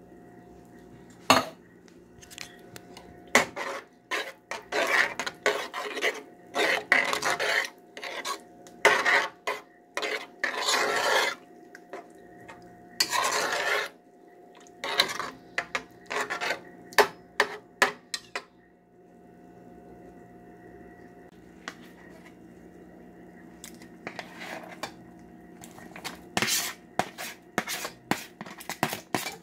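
A spoon stirring thick chili meat sauce in a cooking pot, scraping and knocking against the pot in uneven bursts, with a quieter gap a little past the middle. Near the end come quick taps as chopped onions are scraped off a plate into the pot. A faint steady hum runs underneath.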